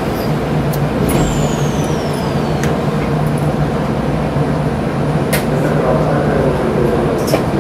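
Keikyu 1000-series train (set 1033) heard from inside, standing just before pulling away: a steady low hum from its onboard equipment, with a few sharp clicks and a short falling whistle about a second in.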